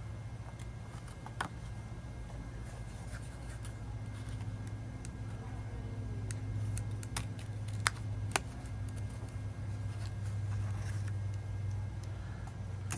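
Stiff cardstock being handled and moved at a craft table, with a few sharp clicks, two of them close together about eight seconds in, over a steady low hum.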